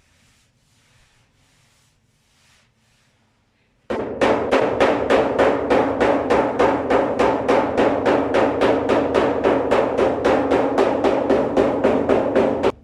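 Background music with a fast, steady drum beat that starts abruptly about four seconds in, after a few seconds of faint rustling.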